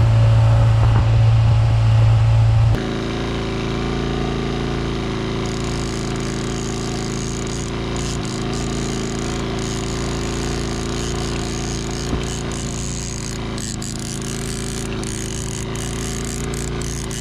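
Small outboard kicker motor running steadily at trolling speed, a low even putter. Before it, a louder steady sound cuts off abruptly about three seconds in.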